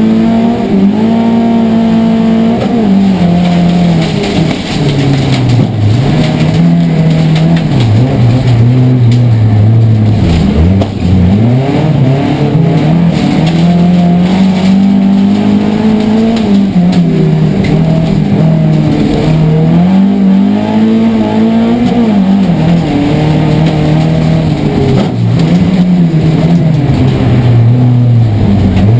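Saab rallycross car's engine on individual throttle bodies, heard from inside the cockpit at race pace. The engine note climbs and drops over and over through gear changes and lifts, with a sharp dip about ten seconds in.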